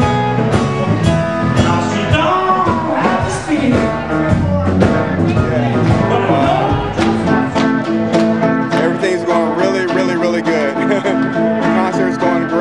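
Blues band playing: guitar leading over bass and drums, with a steady beat.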